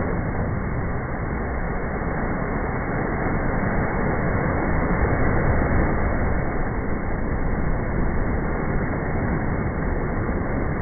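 Small ocean waves breaking and washing up on a sandy beach, a loud, steady rushing noise.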